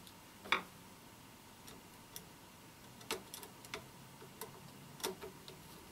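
Faint, irregular small clicks and taps of screws, an Allen key and plastic parts being handled while screws are fitted back into an airsoft rifle's plastic casing. There are about eight clicks, the loudest about half a second in.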